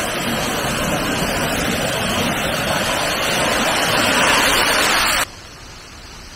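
Waterfall pouring down a rock face onto stones: a loud, steady rush of falling water that cuts off suddenly about five seconds in, leaving only faint background noise.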